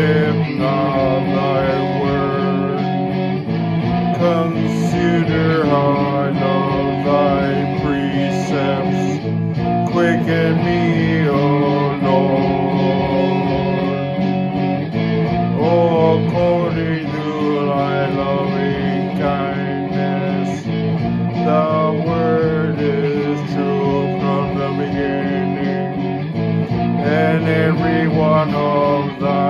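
Guitar playing with a man singing over it: a musical setting of a psalm.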